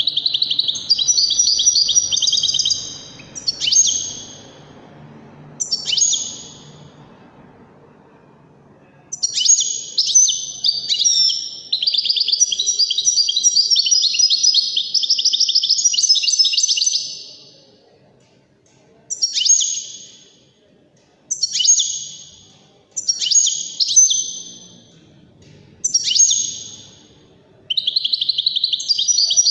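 European goldfinch singing a twittering, trilling song. It comes in short phrases with brief pauses, then one long unbroken run of song in the middle, then short phrases again toward the end.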